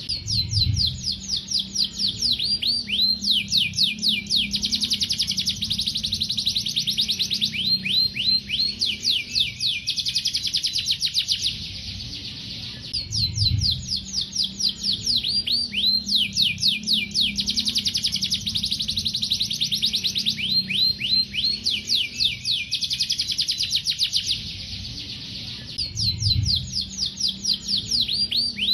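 Domestic canary singing a long, fast song of rapid trills made of quick downward-sweeping notes, broken by two short pauses about twelve seconds apart.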